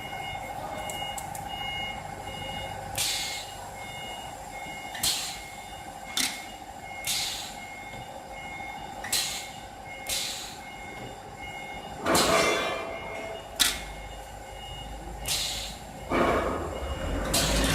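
DC spot welder cycling through a series of welds: about eleven short hissing snaps at uneven intervals of one to two seconds, two of them longer and louder, over a steady whine.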